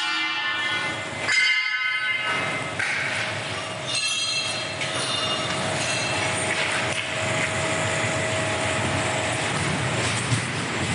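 Industrial machinery running with a steady noise and a constant hum, broken by brief high-pitched squeals about a second and a half in and again about four seconds in.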